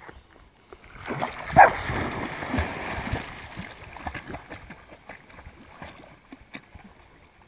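A Jack Russell terrier plunges into a pond about a second in, with a burst of splashing and a short bark, then a few seconds of paddling splashes that fade as the dogs swim away.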